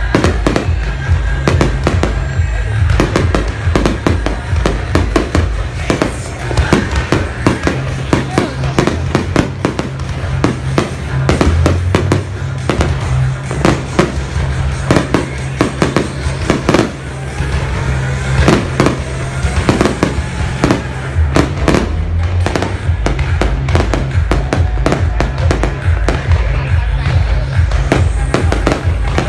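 Aerial fireworks bursting in a rapid, continuous barrage of bangs, with bass-heavy music playing underneath.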